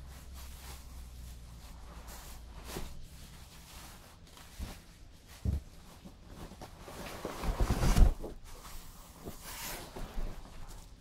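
Cardboard box and packing material being handled as items are lifted out: irregular rustling and scraping with knocks, a short thump about halfway through, and the loudest rustling and bumping around eight seconds in.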